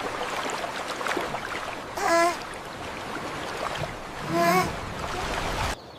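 Steady rushing floodwater. Two short cat meows stand out over it, about two and four and a half seconds in.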